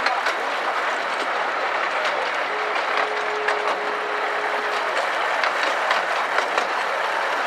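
Carriage of a 15-inch gauge miniature railway running along the track, a steady rumble and rattle with frequent small clicks and knocks from the wheels. A thin steady tone sounds for about two seconds midway.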